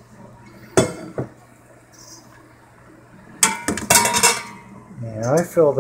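Grapes being dumped into a steam juicer's stainless steel basket: two sharp metal knocks about a second in, then about a second of rattling clatter as the grapes and the bowl strike the steel.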